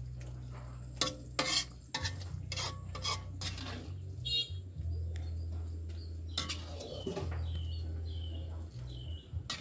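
Metal ladle scraping and clinking against a steel cooking pot as soup is scooped out, with a run of sharp knocks in the first few seconds and another later, over a steady low hum. Birds chirp repeatedly near the end.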